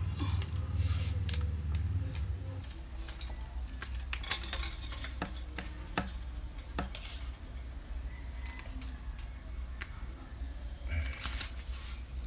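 Scattered light clicks and metallic clinks from handling electrical wire and tools while fishing wire through to the outlet box, with one sharper click about four seconds in. A steady low hum runs underneath.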